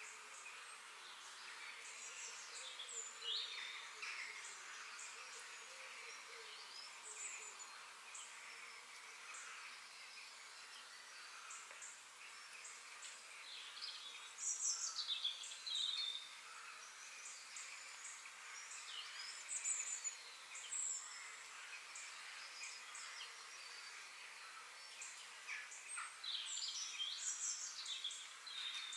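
Several songbirds singing and calling: scattered short chirps and whistled notes, some sliding in pitch, over a faint steady background hiss. The song comes in louder bursts about halfway through and again near the end.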